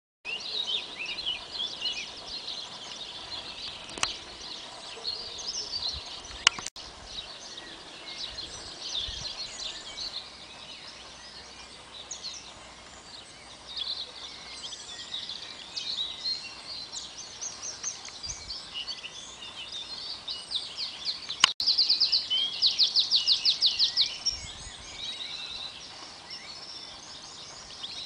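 Several small songbirds singing and chirping together, their calls overlapping. About three quarters of the way through, one bird sings a loud fast trill for a couple of seconds. A few sharp clicks are heard among the songs.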